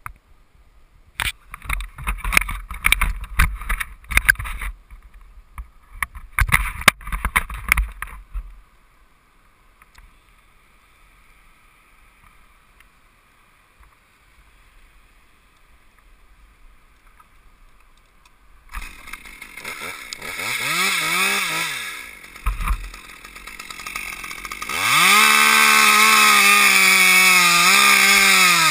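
Knocks and rustling from handling of a helmet camera for the first eight seconds, then a lull. About nineteen seconds in a small Stihl top-handle chainsaw comes in, revving up and down, and from about twenty-five seconds it runs steadily at full throttle, cutting into a pine trunk.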